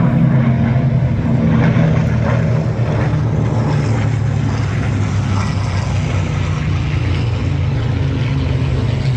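Propeller-driven warbird piston engines droning steadily in a deep, even hum.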